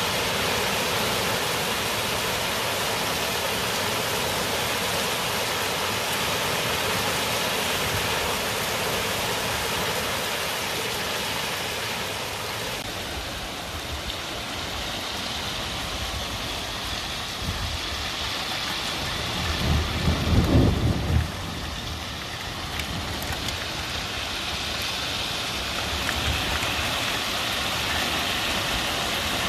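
Heavy rain falling steadily. About two-thirds of the way in a short low rumble of thunder rolls through, the loudest moment.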